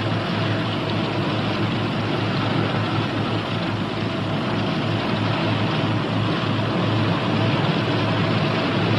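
Northrop P-61 Black Widow's twin Pratt & Whitney R-2800 radial engines running steadily on the ground during warm-up, an even drone with a constant low hum.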